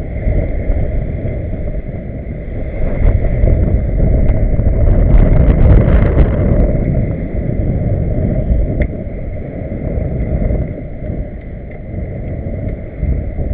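Wind buffeting the microphone over water rushing and splashing along the hull of a Figaro racing sailboat under sail, a steady low rush that swells about four seconds in before easing.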